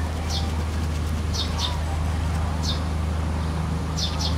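A steady low hum, with short high chirps that come singly and in pairs about five or six times.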